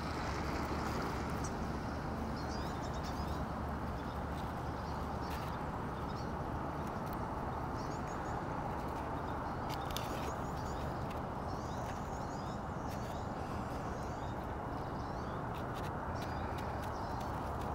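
Steady outdoor background noise, with faint high chirps now and then and a few sharp clicks.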